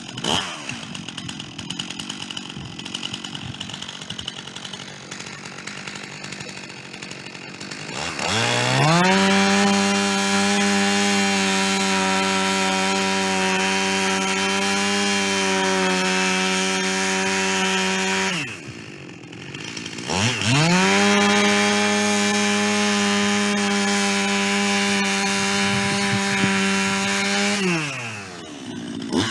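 Chainsaw on a chainsaw mill ripping through a white pine log. It runs rough and lower for the first several seconds, then revs up to full throttle and holds a steady high whine for about ten seconds, drops back briefly just past halfway, and revs up again for about seven seconds before falling off near the end.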